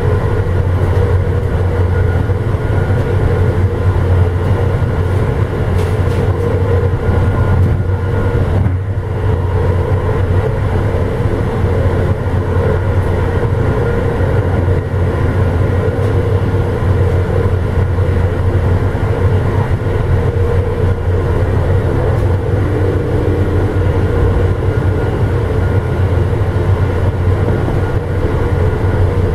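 Amtrak passenger train car running along the track, a loud, steady rumble of wheels on rail with a brief dip about eight seconds in, heard from inside the car.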